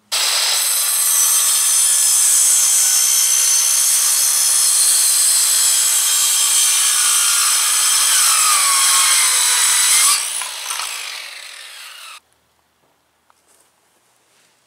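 Black & Decker circular saw running and crosscutting a pressure-treated board. About ten seconds in the cut ends and the saw gets quieter as the blade winds down, then the sound stops abruptly about two seconds later.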